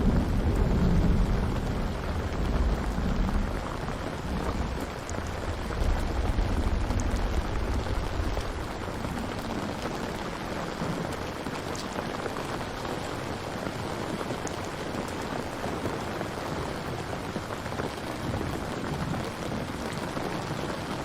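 Steady heavy rain, with low rolling thunder rumbling in the first few seconds and again about six seconds in.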